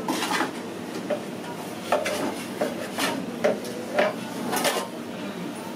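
Metal cake tins and baking trays clanking and scraping as they are moved in a bakery oven: a run of sharp metallic clanks about once a second, some ringing briefly.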